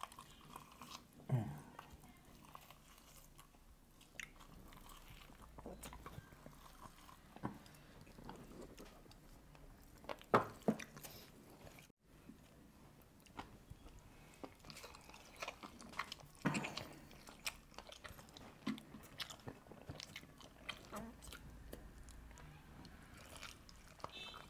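Close-up mouth sounds of people eating roast chicken and pasta with their hands: chewing, biting and soft wet smacks. A few bites are louder, one about a second in and two close together around ten seconds in.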